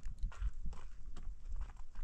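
Walking on stony ground: a run of crunching steps, about three or four a second, a little irregular.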